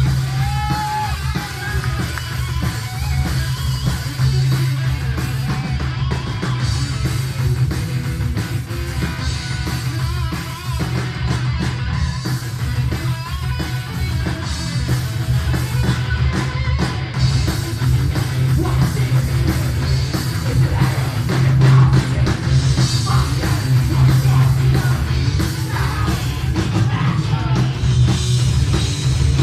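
A heavy metal band playing live, recorded on a mobile phone: electric guitars, drum kit and singing, loud and continuous with a heavy low end.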